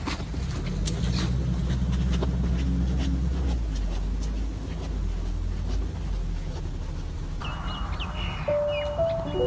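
Soft background music of low sustained chords that change every few seconds. Near the end, a bell-like melody of higher notes comes in.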